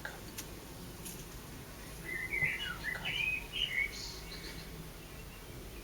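A small songbird twittering: a run of quick, wavering chirps lasting about two seconds, starting about two seconds in.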